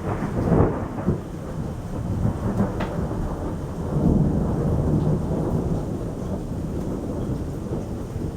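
Thunder rumbling through steady rain, the tail of a clap that struck just before, with a fresh swell of rolling rumble about four seconds in.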